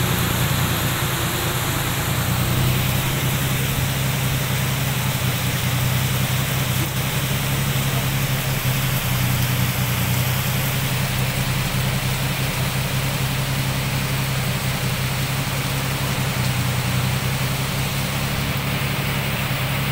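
Heavy rain pouring down steadily, a dense even hiss, with a steady low hum underneath from a running motor.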